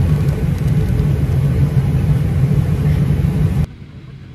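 Steady low rumble of a Boeing 737's cabin while the airliner is parked at the gate with its ventilation running. It drops suddenly to a much quieter, even hum near the end.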